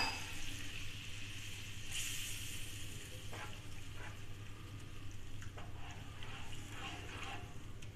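Masala gravy sizzling in a hot non-stick frying pan just after water is added to the fried spices. The sizzle is strongest early and then settles, with a wooden spatula stirring and scraping the pan a few times in the second half.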